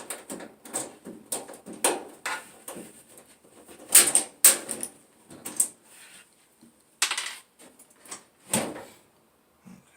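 Irregular clicks, knocks and scrapes of a clothes dryer being taken apart by hand, with the loudest knocks about four seconds in, again near seven seconds and once more shortly after eight seconds.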